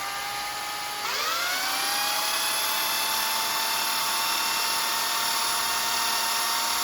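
Electric drill motor running with its trigger pulled, speeding up with a rising whine about a second in and then holding a steady high whine. The drill is being run as a little mini generator to push power back into dead generator windings.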